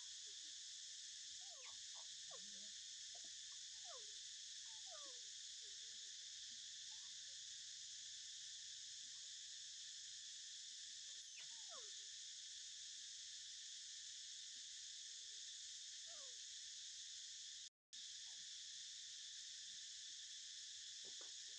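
Steady, high-pitched chorus of insects, with faint short chirps and squeaks scattered through it. The sound cuts out completely for a moment about three-quarters of the way through.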